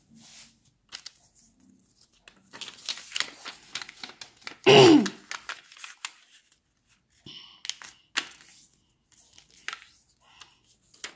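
A sheet of colored origami paper rustling, sliding and being creased against a tabletop as it is folded into a narrow triangle. About five seconds in comes a short, loud sound that falls in pitch.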